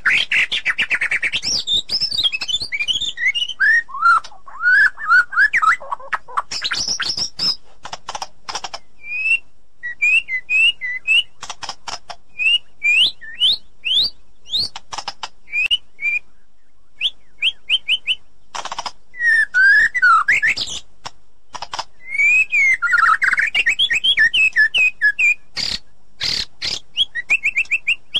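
White-rumped shama (murai batu) singing a varied song: clear whistled phrases sliding up and down, quick runs of short notes and sharp clicking chips, delivered in bursts with brief gaps.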